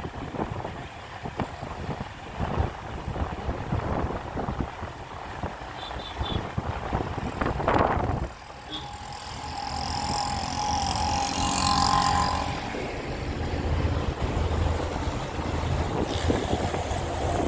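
Road traffic on a wet road with gusty wind buffeting the microphone. A little after halfway, a louder hiss with a steady mid-pitched tone swells for a few seconds, then fades.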